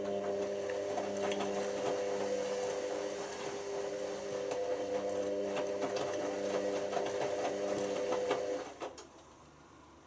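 Hotpoint HV5L125 washing machine's drum motor running with a steady whine and scattered irregular clicks, cutting off sharply near the end. The machine is faulty: the owner says the motor runs at unstable speeds even after a replacement control board was fitted.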